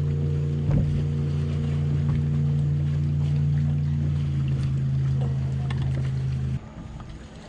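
Steady motor hum from a boat on the lake, one even pitch with overtones, over faint water and wind hiss. It cuts off suddenly near the end.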